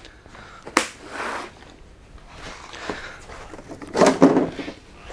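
Handling noises as the Traxxas X-Maxx RC monster truck is picked up and moved on the workbench: a sharp knock about three quarters of a second in, rustling and shuffling, then a louder clatter of knocks about four seconds in.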